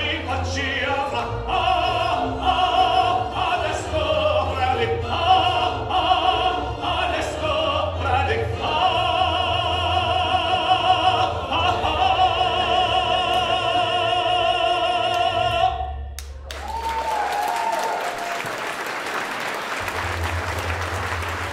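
Male operatic tenor singing with musical accompaniment, holding long notes with vibrato. About sixteen seconds in the music cuts off abruptly and steady audience applause follows.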